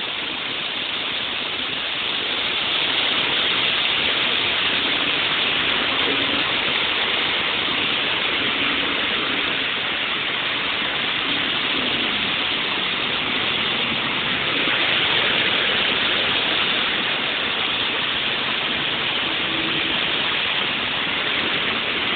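Heavy rain pouring onto a flooded street as a steady hiss. Cars and a minibus drive through the standing water, and the sound swells a little about fifteen seconds in.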